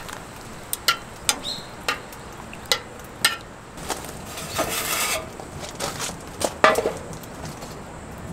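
Camp cookware and utensils clinking and knocking: a string of sharp, separate metallic clicks, some briefly ringing, with a short rushing noise about halfway through.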